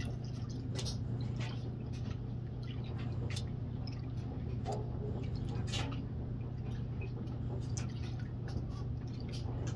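Muddy water pouring and splashing from a plastic gold pan into a tub of water while panning, with scattered drips and small splashes over a steady low hum.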